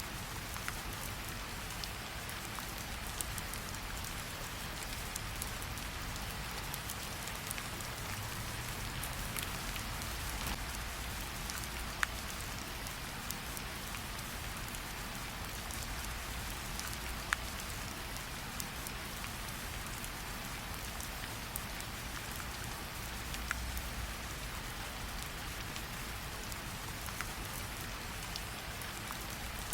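Steady rain falling, mixed with the crackle of a campfire. A few sharp pops stand out over the even rain noise.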